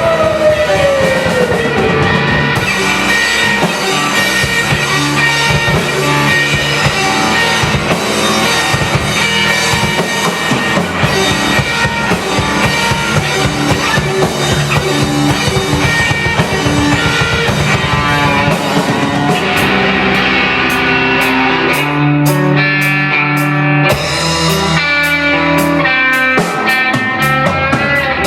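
A rock band plays an instrumental stretch of the song, with electric guitars over a drum kit. A falling pitch slide opens the passage.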